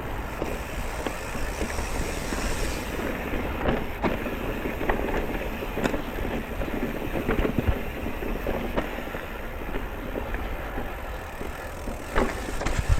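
Electric mountain bike riding over a rough trail: steady rolling and wind noise, with frequent sharp knocks and rattles, the loudest near the end.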